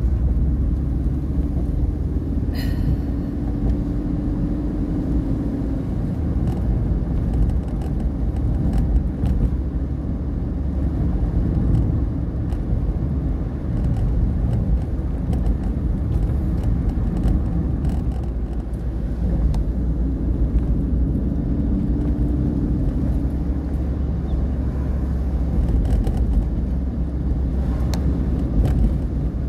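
Car driving, heard from inside the cabin: a steady low rumble of engine and tyres on the road, with a faint engine hum that comes and goes.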